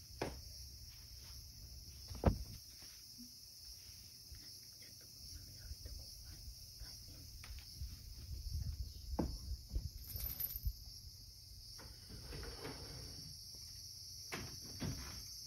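Soft footsteps of a person walking past in socks around the middle, with one sharp knock about two seconds in and a few lighter knocks, over a steady high-pitched insect chirring.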